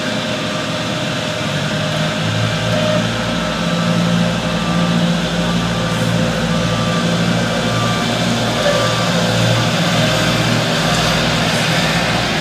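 Caterpillar AP1000D asphalt paver's diesel engine and paving machinery running steadily, the low engine drone growing stronger about two seconds in.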